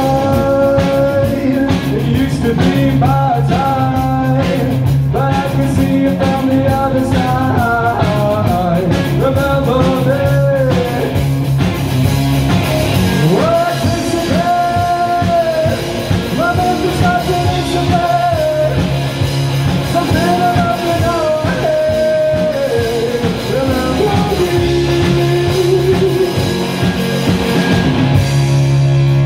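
Live rock band playing: electric guitar and drum kit with a man singing the lead vocal, long held notes that bend and slide.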